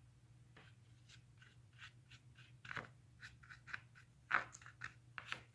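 Brush scrubbing and dabbing acrylic paint over a canvas textured with modeling paste: faint, irregular scratchy strokes, more of them in the second half, over a steady low hum.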